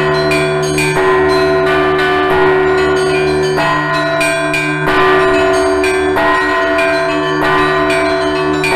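Russian Orthodox church bells ringing: small bells struck in quick rhythmic patterns, several strokes a second, over the sustained hum of larger, deeper bells.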